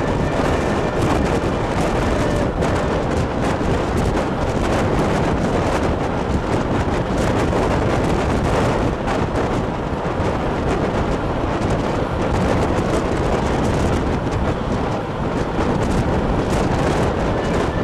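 Wind buffeting a microphone held out of the window of a moving passenger train, over the steady running noise of the train on the rails.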